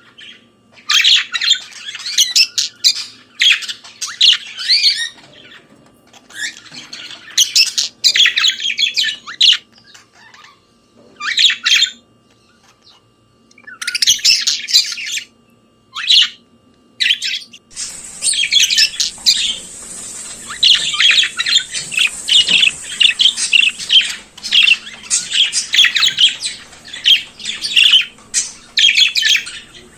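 Budgerigar warbling and chattering, with rapid squawks and chirps. For the first half it comes in bursts of a second or a few seconds with short pauses; from a little past halfway it runs on without a break.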